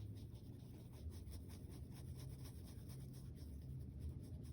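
Faint, repeated scratchy strokes of a paintbrush on a canvas, over a low steady hum.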